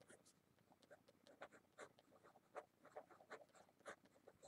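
Faint scratching of a pen writing on paper: a quick, irregular run of short strokes as words are written out.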